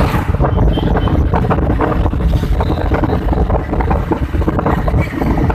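Wind buffeting the microphone over the rumble of a moving vehicle travelling along the road, loud and unbroken.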